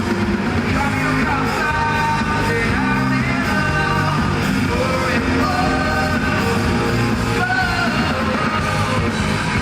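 Live rock band performing, with a male lead vocal singing over electric guitars, bass and drums.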